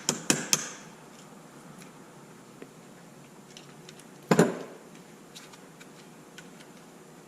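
Tool tapping on a stuck suspension shaft in an RC truck's rear end to drive it out: a quick run of three sharp taps at the start, small faint clicks of handling, and one louder knock about four seconds in.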